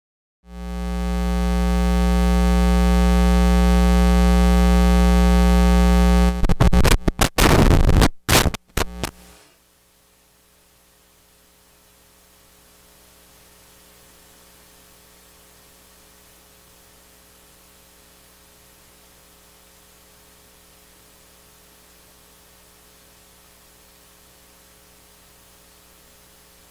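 Loud electrical mains buzz from a sound system's audio feed, a steady stack of hum tones. About six seconds in it breaks into crackling bursts and dropouts, and from about nine seconds in only a faint steady hum remains: the sign of an audio feed not yet properly switched through.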